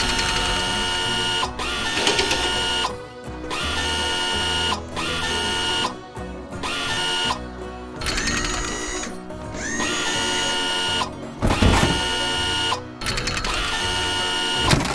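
Background music mixed with repeated whirring power-tool sound effects, like a drill spinning up and stopping every second or two.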